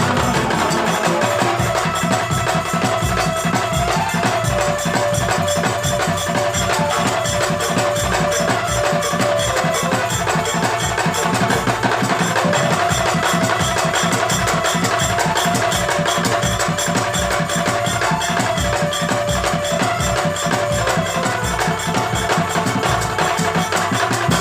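Music with a fast, busy percussion beat of woody knocks and a steady melodic line over it.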